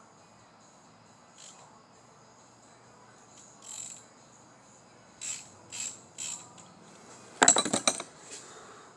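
Hand ratchet clicking in a few short runs, then a louder run of rapid clicks lasting about half a second near the end, as the ARP head stud nuts are turned.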